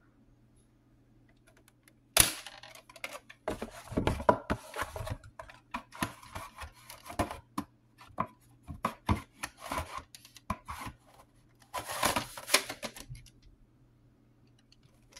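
Plastic VHS cassettes and their cases being handled: a sharp click about two seconds in, then an uneven run of clicks, taps and rubbing as a tape is put away and the next case is picked up, with a louder stretch of rustling clatter about twelve seconds in.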